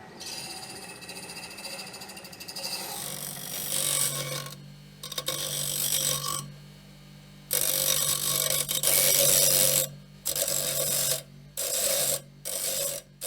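Bicycle-driven bench grinder: metal pressed against the spinning grinding wheel in repeated grinding bursts of a second or two each, over a steady low hum from the belt-driven wheel.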